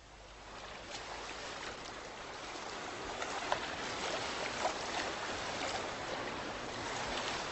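Moving water that fades in over the first second: a steady rush with small splashes and drips scattered through it.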